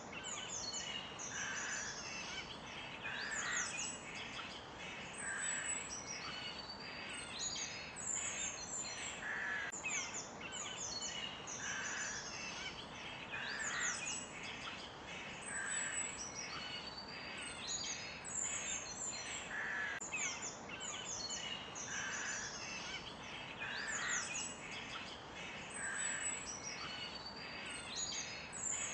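Woodland birdsong chorus: many birds chirping and whistling in quick high calls, with a lower call recurring every couple of seconds over a steady background hiss.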